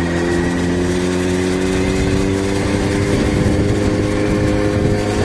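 Yamaha XJ6's 600 cc inline-four engine running under way, its pitch rising slowly and steadily as the motorcycle gains speed.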